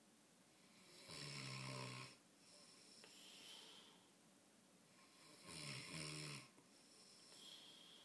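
A man snoring in his sleep: two snores about a second long each, some four seconds apart, with softer breathy exhales between them.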